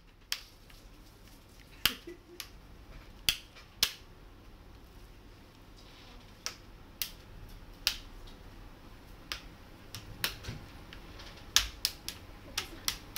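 Sharp plastic clicks and snaps at irregular intervals, a dozen or more, bunching up in the second half, as the plastic screen bezel of an Asus laptop is pried loose and its clips pop free.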